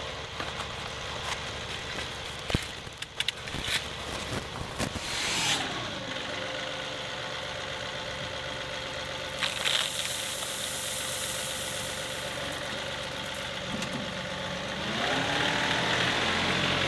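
Steel rake scraping and knocking in gravel, then the John Deere 2038R compact tractor's diesel engine running steadily as its loader bucket tips gravel into a trench. The engine drops in pitch about five seconds in, holds, and rises again near the end. The gravel pours with a hiss partway through.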